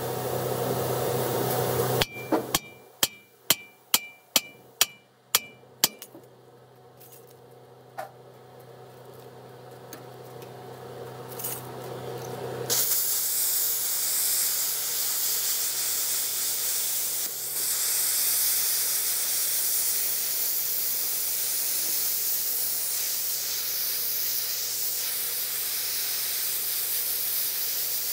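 About nine sharp metallic strikes, a little over two a second, then after a quieter spell an arc welder's steady hiss starting about 13 seconds in as a bead is laid, welding a new pintle hitch onto its mount.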